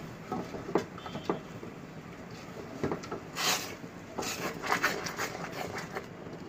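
A silicone spatula stirring simmering caramel sauce in a metal pot, with irregular scrapes and soft taps against the pan and a brief louder scrape about three and a half seconds in.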